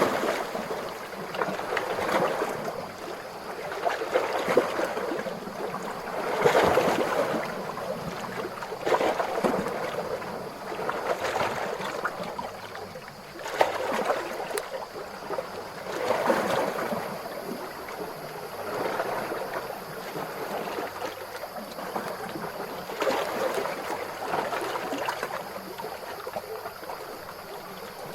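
Small ocean waves washing ashore, a soft rushing that swells and fades every two to three seconds.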